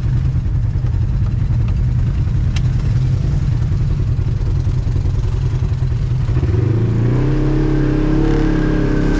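Off-road vehicle engine running continuously while riding a trail, with a sharp click about two and a half seconds in. The engine sound shifts higher and steadier about seven seconds in.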